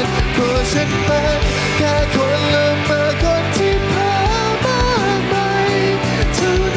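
Pop-rock song played by a full band with a steady drum beat, and a singer's melody line of long held, sliding notes over it.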